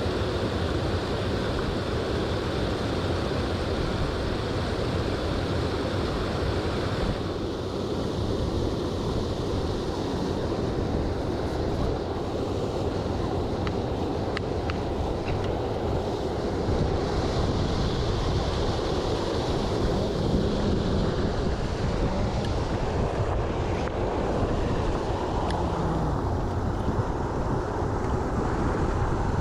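Steady rushing of a mountain stream's flowing water, with a few faint clicks about halfway through.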